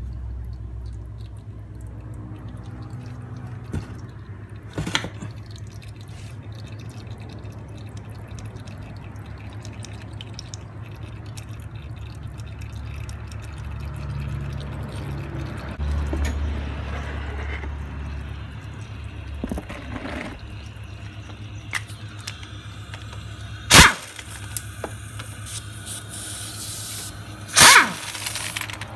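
Hand tools clicking against an open motorcycle engine over a steady low hum, with two loud sharp knocks near the end.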